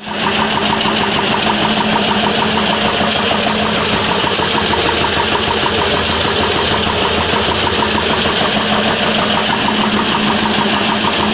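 Feed mill grinding machine running steadily while milling maize, a loud continuous machine roar with a constant low hum.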